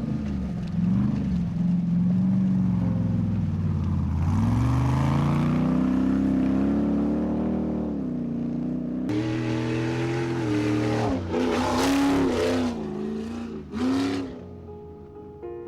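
RC crawler motor and gear drive whining, its pitch rising and falling as the throttle is worked, with several short revs near the end.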